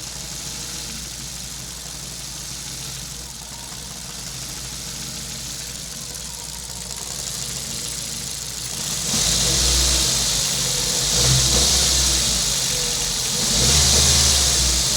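Ford Focus engine running at a rough idle, steady at first. It swells louder three times in the last six seconds.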